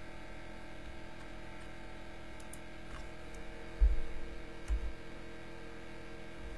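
Steady low hum with a few faint clicks, and two dull low thumps about four and five seconds in.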